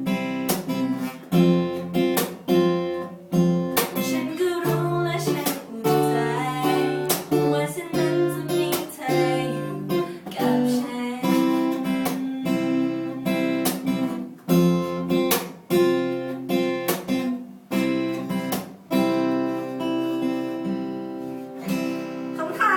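Acoustic guitar strummed in a steady rhythm of chords, the accompaniment of a song.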